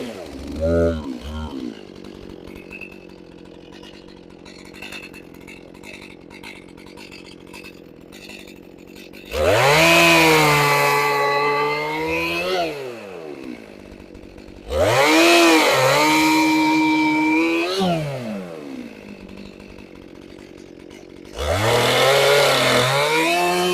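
A chainsaw idling with a couple of short throttle blips, then revved to full throttle three times to cut through a log into firewood rounds. Each cut lasts three to four seconds, the pitch sagging under load, before the saw drops back to idle.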